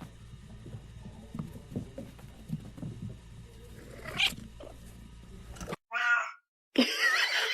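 Cat meowing: a single meow about four seconds in, then after a break a short call and a louder yowl with a wavering pitch near the end. Soft scattered knocks and bumps come before the first meow.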